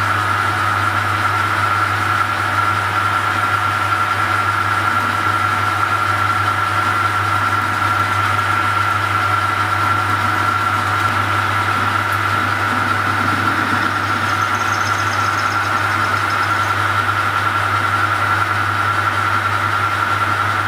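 Metal lathe running steadily, giving a constant low motor hum and a steady high whine, while a radius tool takes a gentle cut on the end of a small metal rod.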